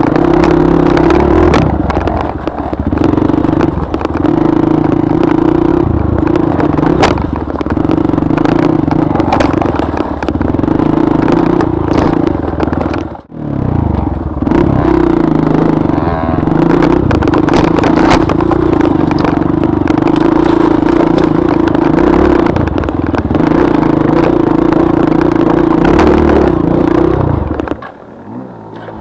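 Dirt bike engine running under steady throttle, with knocks and rattles from riding over rough ground. The engine sound drops away sharply for a moment about thirteen seconds in and falls off again near the end.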